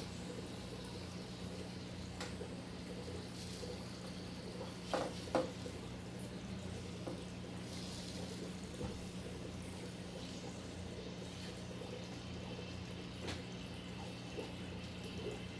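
Faint water sounds in an aquarium with an air stone bubbling, over a low steady hum. A few short handling sounds come through, the clearest about five seconds in and another near the end, as the sponge filter is worked into the tank.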